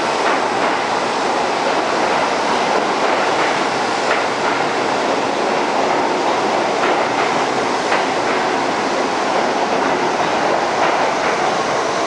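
Eight-car R68A subway train pulling into an underground station, a loud, steady rush of running noise with the wheels clicking over the rail joints.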